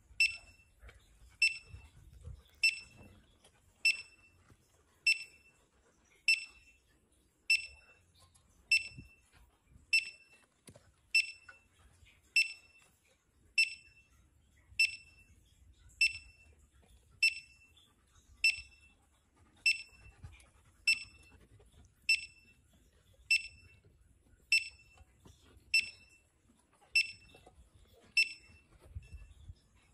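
Metal detector beeping: a short, high electronic beep repeating evenly about once every 1.2 seconds, about 25 in all.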